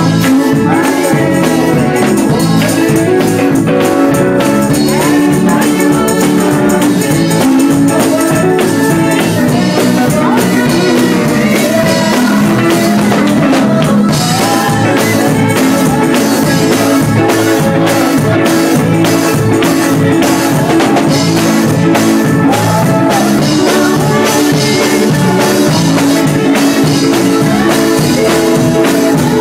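Live gospel music: a man singing lead into a microphone over electric guitar and a drum kit keeping a steady beat, all loud and without a break.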